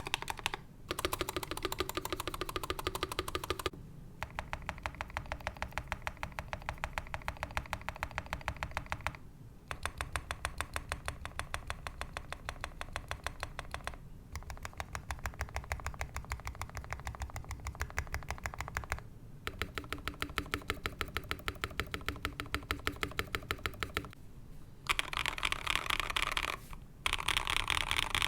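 Next Time 75 mechanical keyboard with Tecsee Ice Candy switches and PBT keycaps: the stabilized large keys pressed over and over in quick runs of clicks, one key at a time, with short pauses between the runs. Near the end the home-row keys are typed across instead, a brighter, denser clatter.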